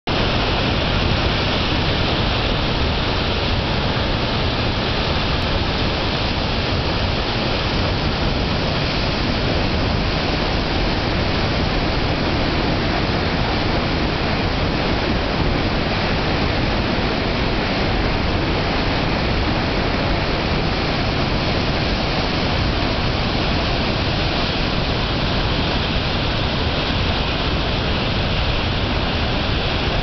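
A waterfall and the white-water rapids below it, a loud, steady rushing of water with no let-up.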